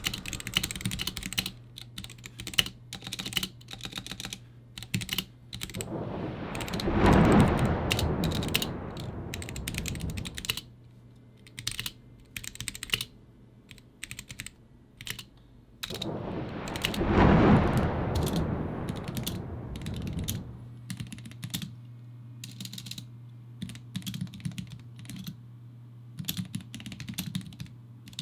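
Typing on a mechanical keyboard with lubed Gateron Yellow linear switches: a fast run of keystrokes, with stabilizers that still sound untreated. Two louder rushing swells of noise rise and fall about seven and seventeen seconds in, over a faint steady low hum.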